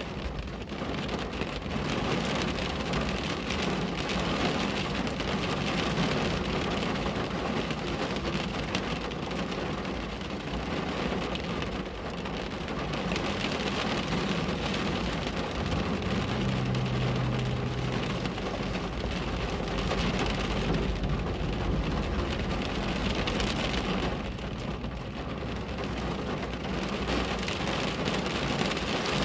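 Steady rain falling on a window, an even hiss with no breaks. A low rumble swells underneath about two-thirds of the way through.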